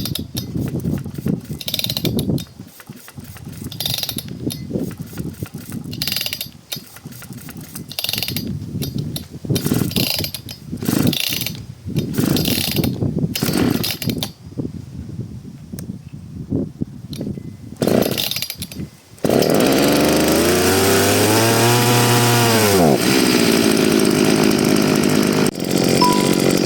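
Oleo-Mac GS 651 two-stroke chainsaw being pull-started: a long series of starter-cord pulls, then the engine catches about 19 seconds in. It rises once in a short rev and drops back, then runs steadily.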